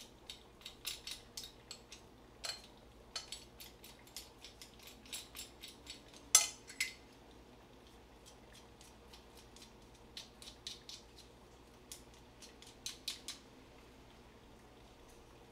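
A metal garlic press and utensils clicking and clinking against a pan, as garlic is squeezed by hand. The clicks come fast and irregular, with one louder clank about six seconds in, then thin out and stop near the end.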